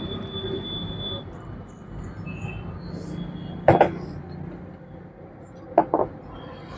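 Handling the demolition hammer's rear motor cover and hand tools: a sharp clack about midway, then two lighter clicks near the end as the cover is lifted off, over a steady background hum.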